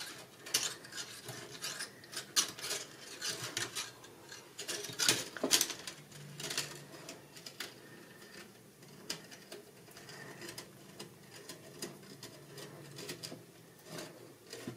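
18-gauge utility wire being wound by hand around a rebar-wire frame: irregular clicks, ticks and scraping as the wire rubs and catches on itself, busier in the first half and sparser later.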